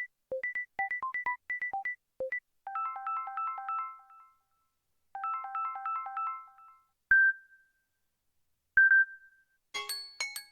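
Samsung Galaxy S20 FE stock ringtones, recorded directly from the phone. A short repeating pattern of plucked notes ends about two seconds in. Then a quick melodic phrase plays twice, then two single chimes ring out a little under two seconds apart, and a new, busier tone starts near the end.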